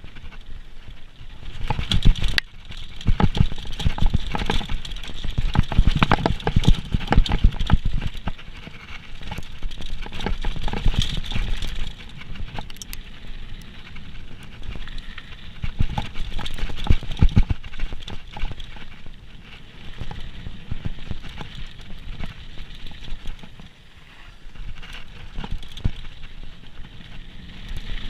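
Downhill mountain bike clattering and rattling over rough trail on a descent: an irregular stream of knocks and rattles over a low rumble, rising and falling in loudness.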